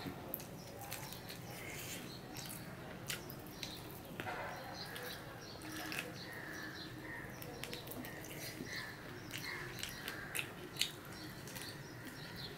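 A person eating rice and chicken curry by hand: faint chewing and biting with many short soft mouth clicks and smacks.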